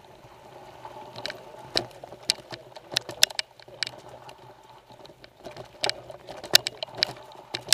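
Irregular sharp knocks and rattles from a mountain bike and its mounted camera jolting over a wet, rocky trail on a downhill run, over a steady rolling noise from the tyres on loose stone. The loudest knocks come in clusters, near the middle and again near the end.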